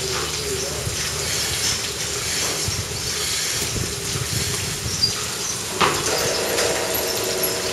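Steady hiss and rumble of a rotary milking parlour's machinery while milking clusters are attached, with light clicks and two sharp metal knocks about five and six seconds in.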